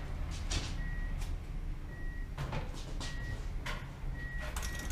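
A car's warning chime beeps a single steady high tone about once a second, four short beeps in all. A few light clicks and knocks and a low hum sit under it.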